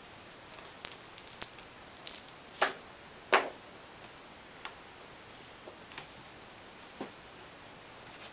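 A stiff card pink bollworm delta trap and its sticky insert being folded and handled. There is a quick run of crackles and rustles, with two sharp snaps around three seconds in as it is creased, then a few faint ticks.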